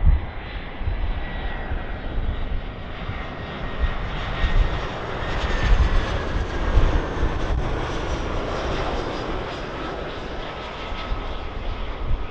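Airliner engines passing by: a broad rushing noise that swells to its loudest about halfway through and then eases off, with a faint whine sliding down in pitch. Wind buffets the microphone in gusts throughout.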